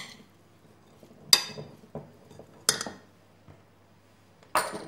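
Metal spoon clinking against a glass salad bowl while chopped tomatoes, peppers and parsley are stirred: four sharp clinks, spaced roughly a second and a half apart.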